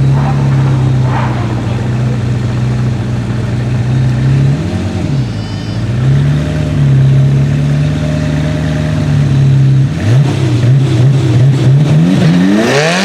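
A high-performance engine idling steadily, blipped once briefly in the middle. Near the end it revs in several short rising pulls and then accelerates hard, the pitch climbing steeply.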